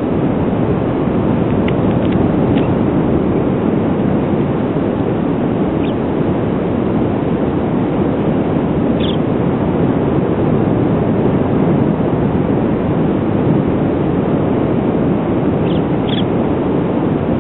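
Steady wind rushing over the microphone. A handful of short, faint, high peeps come through it now and then, from western snowy plover chicks at the nest.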